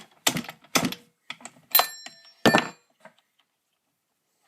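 Hard clicks and knocks of a tool working the spark plug out of a Poulan chainsaw: about five sharp knocks in the first three seconds, one of them ringing briefly like metal.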